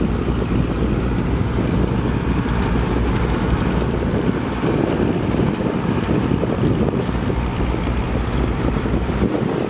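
Heavy construction machinery's diesel engines running with a steady low rumble, with wind buffeting the microphone.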